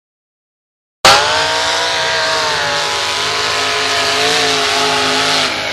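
Silence for about a second, then, starting suddenly, a mud-drag Jeep's engine running flat out at high revs as it races down the mud pit, its pitch holding high with small wavers and a slight dip near the end.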